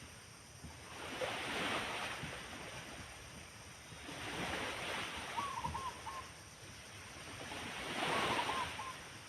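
Two short cooing calls of a zebra dove (perkutut), one about five seconds in and one near the end, over a soft rushing noise that swells and fades about every three seconds.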